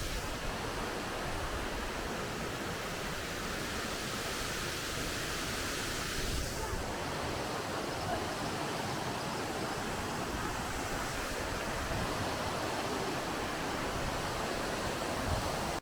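Steady rush of falling water from Hebbe Falls, a tall waterfall. The hiss turns slightly brighter about six seconds in.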